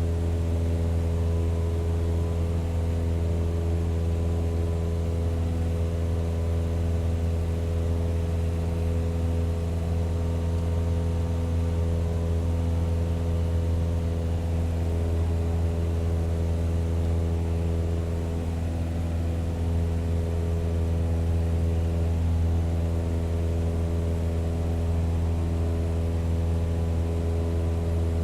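Propeller plane engine running steadily at an even, low pitch, with no rise or fall in speed or loudness.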